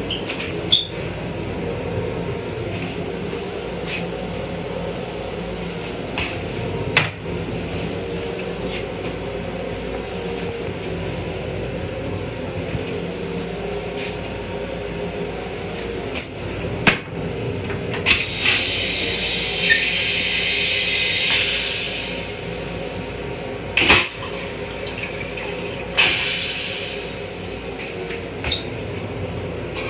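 Long Island Rail Road M7 railcar toilet flushing into its stainless bowl: a hiss of rinse water for a few seconds ending in a sharper whoosh, then a second, shorter whoosh that fades. Scattered clicks and knocks of the lid and fittings come before it, over the steady hum of the rail car.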